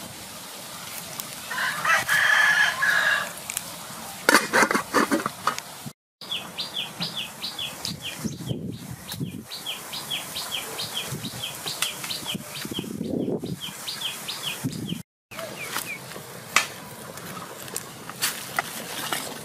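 Rooster crowing once, about two seconds in, then a quick flutter of clicks like flapping wings. After that a small bird calls in short high chirps, about three a second, for several seconds, with a few lower calls underneath.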